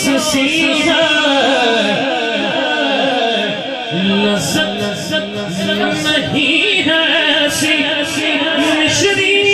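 A man singing a manqabat, an Urdu devotional praise poem for Ali, over a public-address system in long, melodic, drawn-out phrases.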